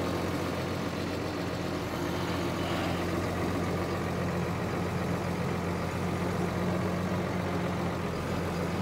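Tractor engine running steadily at low revs, heard from inside the cab.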